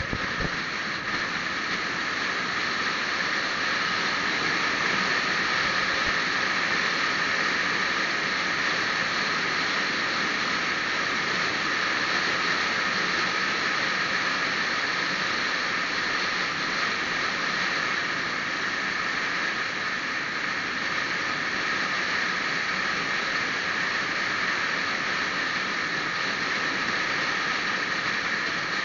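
Steady rushing wind and road noise from a vehicle driving along at a constant speed, with no engine note standing out.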